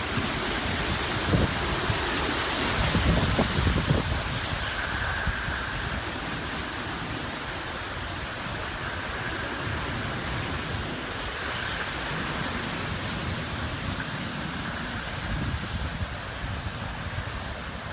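Hurricane wind and rain: a steady rushing noise, with stronger gusts in the first few seconds.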